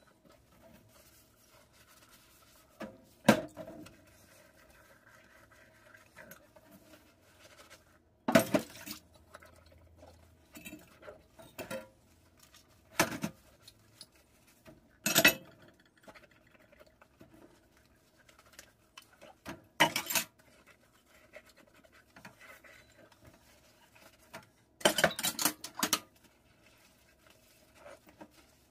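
Ceramic mugs, plates and bowls clinking and knocking against one another and the stainless steel sink as they are hand-washed and set down, in separate sharp knocks a few seconds apart, one of them ringing briefly. Near the end there is a longer rattling clatter of dishes.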